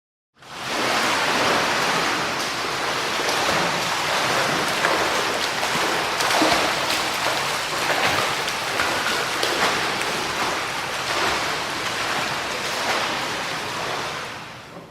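A swimmer's strokes splashing and churning water, a dense steady run of splashes that fades out near the end.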